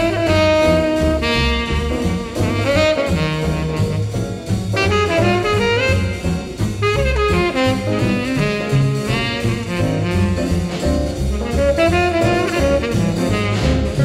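Jazz background music: a horn melody over a bass line.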